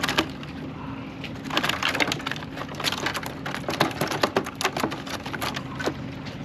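Rummaging through a plastic milk crate of fishing gear: a quick run of crackles, clicks and rustles as packets, a bottle and a towel are moved and pulled out, busiest through the middle.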